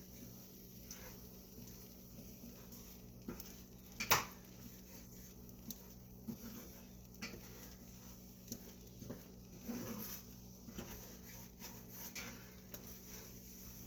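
Scattered light kitchen clatter: short knocks and clicks of dishes and utensils, with one sharper knock about four seconds in, over a steady low hum.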